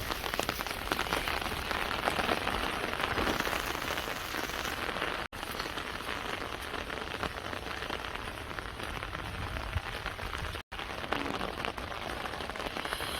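Steady rain, a dense hiss of many small drop taps striking a surface. It cuts out for an instant twice, once near the middle and again about two-thirds through.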